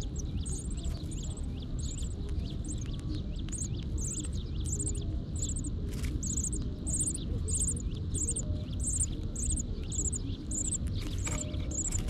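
High, thin bird chirps repeating about twice a second, over a steady low rumble.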